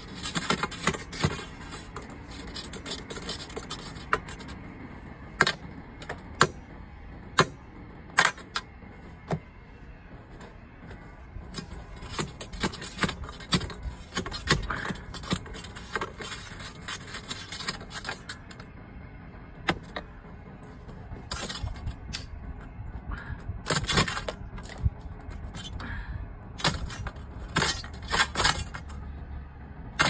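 A metal rod scraping and knocking inside PVC furnace exhaust and intake pipes, chipping out the ice that has clogged them. The sharp knocks and scrapes come irregularly, in clusters.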